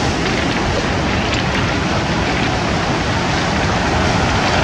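Surf breaking and washing onto a cobble beach, a steady loud rush, with wind buffeting the microphone.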